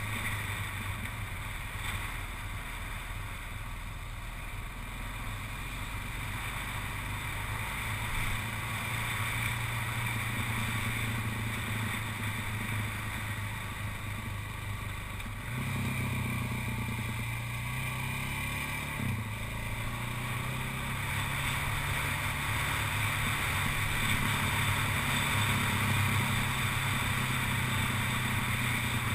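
Motorcycle engine running at a steady cruise, with wind rushing over the microphone. The engine note steps up about halfway through and shifts again a few seconds later.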